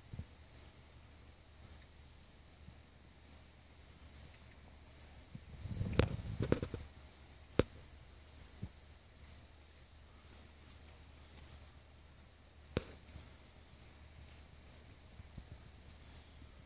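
A short, high chirp repeating at a fairly even pace, roughly once every half second to second. A few sharp clicks and a brief rustle come about six seconds in.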